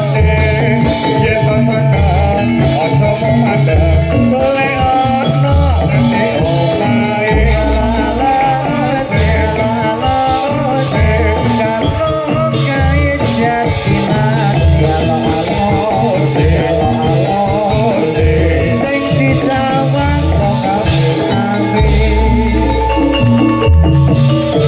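Live jathilan (kuda lumping) accompaniment music playing continuously: gamelan-style struck metallophones and drums over repeated deep bass notes, with a voice singing along.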